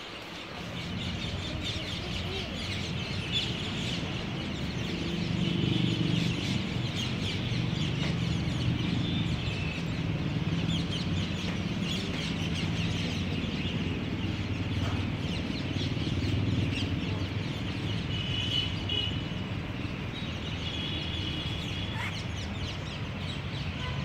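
A large flock of rose-ringed parakeets calling as it flies over: a dense, continuous chatter of many overlapping shrill calls, over a low steady background rumble.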